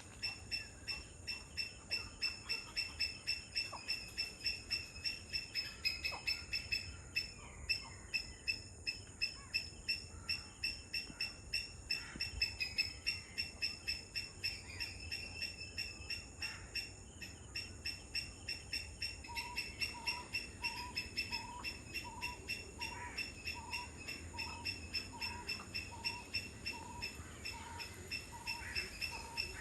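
Wetland birds calling: a high call pulses steadily about three to four times a second throughout. After about twenty seconds a lower short note joins it, repeated evenly about one and a half times a second.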